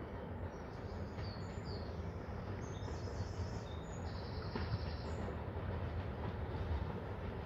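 Small 10¼-inch gauge steam locomotive running toward the listener from a distance, a steady low rumble growing slightly louder. Small birds chirp high above it through the first few seconds.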